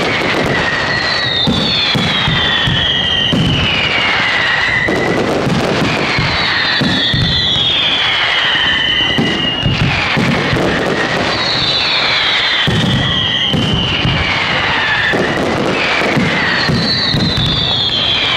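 Aerial fireworks going off in a dense, continuous run of bangs and crackling. Falling whistle-like tones recur every couple of seconds.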